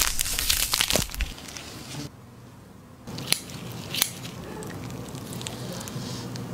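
Crisp crackling and crunching in the first second, then two sharp snips of steel kitchen scissors cutting into a raw chicken drumstick, with soft handling of the wet meat.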